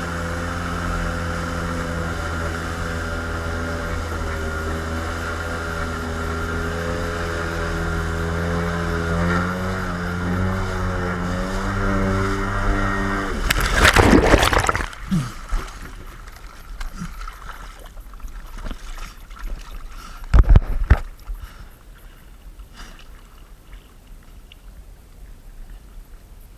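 A watercraft engine running steadily, its pitch wavering a little before a loud rush of noise about halfway through; after that the engine is no longer heard and only quiet splashy noise with a heavy thump or two remains.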